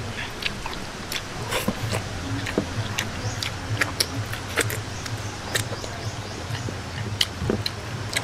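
A man eating by hand, chewing with his mouth open: wet chewing and lip-smacking with scattered sharp clicks, along with his fingers working rice on a plate.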